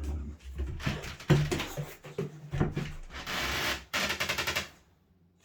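Boxer dog making a low, drawn-out grumbling moan, with knocks and rustling as she moves about, and a quick run of clicks about four seconds in.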